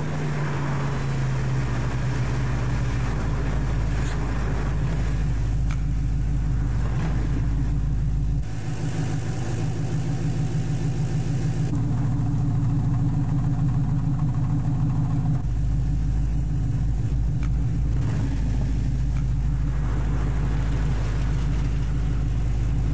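2004 Pontiac GTO's 5.7-litre V8 idling with a steady, pulsing low rumble from its twin exhaust. Its tone shifts slightly about a third and again two-thirds of the way through.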